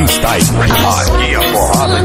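Background music with a steady bass line and a vocal.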